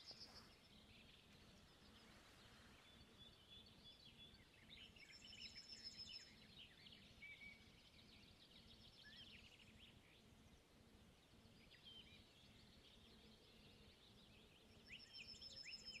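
Faint songbirds singing: scattered high chirps and short whistled phrases, with a fast, high repeated trill about five seconds in and again near the end.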